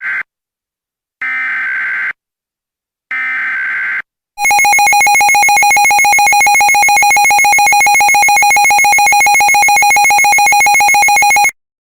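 Mock Emergency Alert System header: the tail end of one data burst right at the start, then two more buzzy data bursts of about a second each. These are followed by the loud, steady two-tone EAS attention signal, which lasts about seven seconds and cuts off suddenly.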